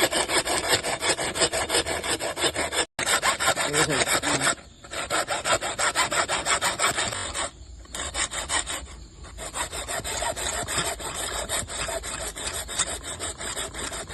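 Quick, repeated back-and-forth rasping strokes of a hand tool cutting away a glued pipe stub stuck inside a pipe fitting, with a short stop about three seconds in and a few brief pauses later.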